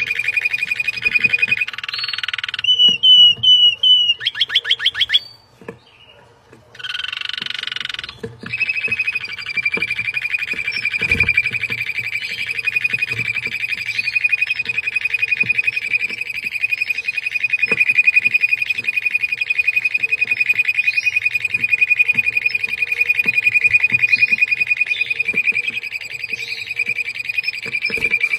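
Red mosaic canaries singing in song excitement: varied phrases of repeated notes and trills, a short pause about five seconds in, then one long fast trill held at an even pitch for about twenty seconds.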